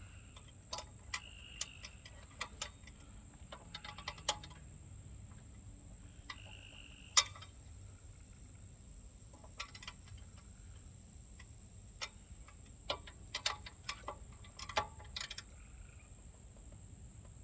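Ratchet wrench and sockets clicking and clinking on metal as the engine mount bolts are worked loose: irregular clicks in short quick clusters, with one sharper clink about seven seconds in.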